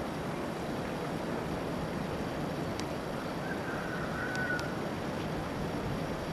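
Steady wind noise on the camera microphone, with a faint brief high tone about halfway through.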